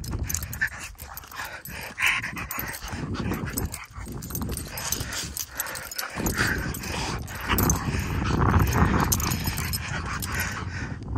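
A Norwegian Elkhound playing right up against the phone: dog sounds close to the microphone, mixed with irregular bumps, scuffs and rubbing as its nose, fur and paws hit the phone.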